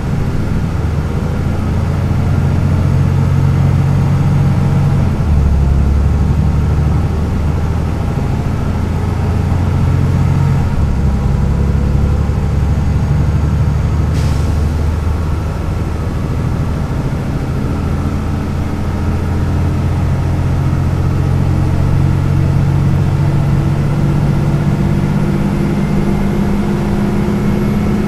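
MAN NL 202 city bus's diesel engine and Renk automatic gearbox running under way, its low engine note changing in steps a few times. A single short click about halfway through.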